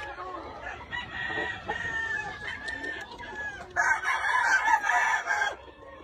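Gamefowl roosters crowing, with calls at different pitches overlapping in the first few seconds. About four seconds in, one much louder crow close by lasts about a second and a half and stops abruptly.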